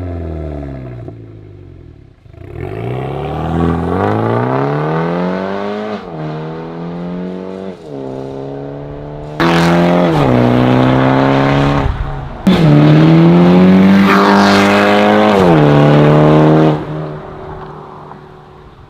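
BMW G20 330i's B48 turbocharged four-cylinder engine and exhaust revving, the pitch rising and falling several times. Two louder stretches start suddenly about halfway through and a little later, and the sound fades away near the end.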